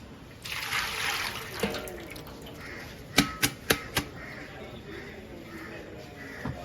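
A short rush of hissing, splashing noise lasting about a second, then four sharp knocks in quick succession, about a quarter second apart.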